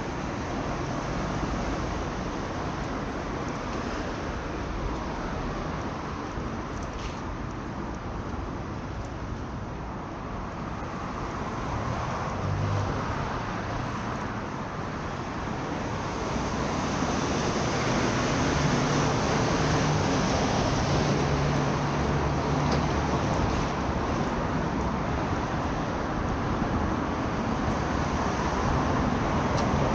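City road traffic: cars and other vehicles passing on a street, a steady rush of tyres and engines. It grows louder about halfway through, with the low hum of a nearby engine.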